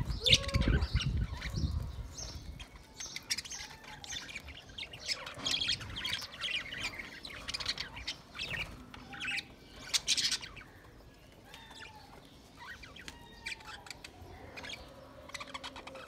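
A flock of budgerigars chirping and warbling, with a flurry of wing flaps in the first couple of seconds as a bird flies across. The chirping is busiest in the middle and thins out over the last few seconds.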